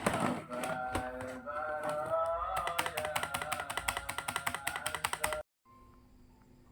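Background music with a sung or melodic line and a fast, even clicking beat, cutting off abruptly about five seconds in; faint room noise follows.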